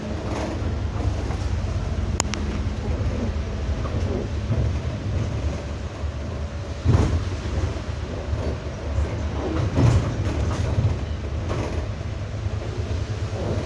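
Interior of a moving bus: a steady low engine rumble with the body and fittings rattling throughout, and two heavier jolts about seven and ten seconds in.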